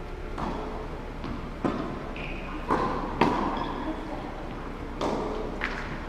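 Tennis ball struck by rackets and bouncing on an indoor hard court during a rally: a string of sharp knocks, one every half-second to a second, each echoing around the large hall.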